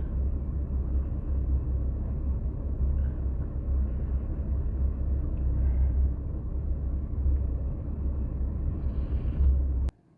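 Steady low rumble, such as wind buffeting a phone microphone or a car's road noise, that cuts off suddenly with a click near the end.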